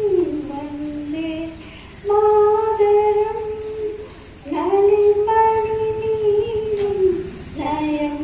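A woman singing a patriotic song solo and unaccompanied, in long held notes with gliding pitch and two short breaks for breath.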